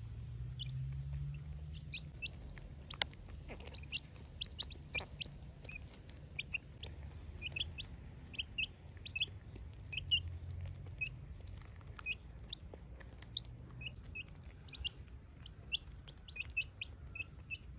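Domestic chicks peeping in many short, high chirps, several a second at times, as they peck at feed, with a few sharp clicks among them.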